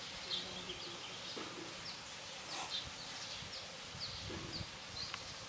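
Outdoor nature ambience: a bird giving short, falling chirps about twice a second over a steady, high insect whine.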